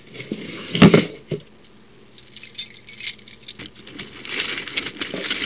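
Metal bump keys on a ring being handled, jingling and clinking in several short spells, with one sharp clack about a second in.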